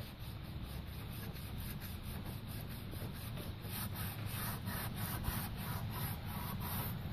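A rag rubbing back and forth over a truck's painted door panel in quick even strokes, about three a second, scrubbing off brake-dust spots. Wind rumbles on the microphone underneath.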